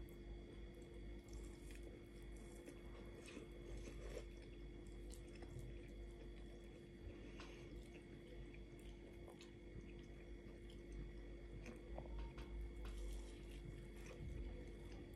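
Quiet chewing of potato and chicken, with scattered light clicks of a fork against the plate, over a faint steady hum.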